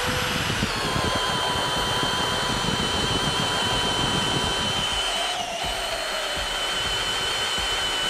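Kobalt brushless hammer drill in drill mode on speed one, boring a large auger bit into a tree stump: a steady high motor-and-gearbox whine under load. The whine sags briefly a little past halfway as the bit bites harder.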